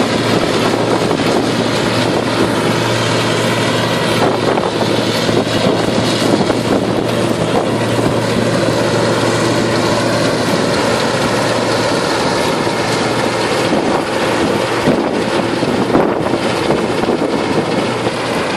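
Harvester's engine and machinery running steadily and loudly, with a low hum that weakens about two-thirds of the way through.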